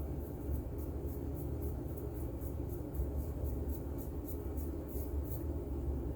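Razor blade scraping through lathered stubble in quick short strokes, about three to four a second.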